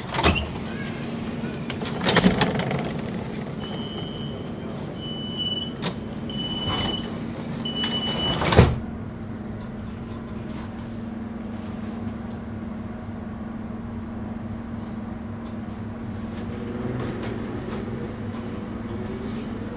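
Doors of a DUEWAG B80D light-rail car closing at a stop: four warning beeps, then the doors shut with a loud thud about eight and a half seconds in, after a sharp knock near the start. The car then hums while standing, and its traction motors begin a faint rising whine near the end as it pulls away.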